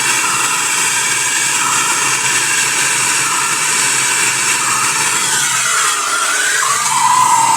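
Gas blowtorch flame hissing steadily while heating the plastic hub around a washing machine's transmission shaft to free it. Its tone briefly swoops down and back up about six seconds in.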